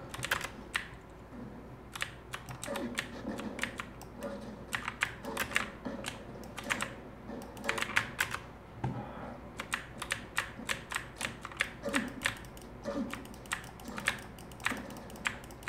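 Computer keyboard keys and gaming-mouse buttons clicking in quick, irregular runs, many clicks a second with short gaps, as keys and buttons are worked hard in a fast shooter game.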